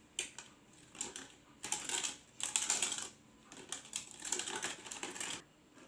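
A utensil stirring pudding mix and sugar in a pot: rapid clicking and scraping against the pot in several bursts, with short pauses between them.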